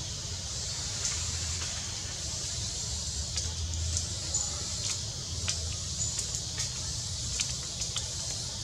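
Outdoor background ambience: a steady high hiss with a low rumble underneath that swells and fades, and scattered faint clicks and rustles. No calls from the monkeys.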